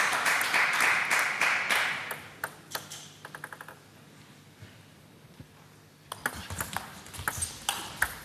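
Spectators' applause dies away over the first two seconds. A quick run of celluloid table tennis ball bounces follows. After a short lull, a rally starts about six seconds in, with the ball clicking off the bats and table at an irregular pace.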